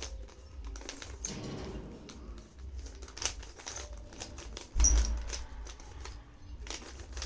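Rubik's cube being turned by hand, its layers clicking and rattling in quick irregular runs, with one louder bump a little under five seconds in.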